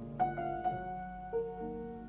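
Slow solo piano music, a few notes struck one after another over held lower notes.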